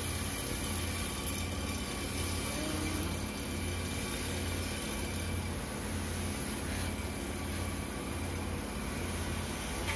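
Steady low engine hum that swells and fades slightly, like a motor idling, with a faint click or two near the end.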